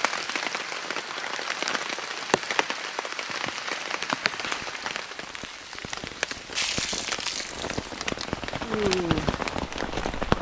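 Rain falling steadily on a nylon tarp, with many individual drops tapping on the fabric, and a brief louder rush of hiss about two-thirds of the way through.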